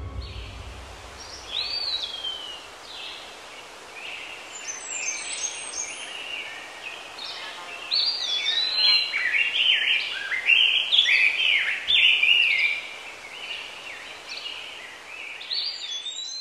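Several birds chirping and singing over a steady background hiss, the calls overlapping and growing busier and louder from about eight seconds in.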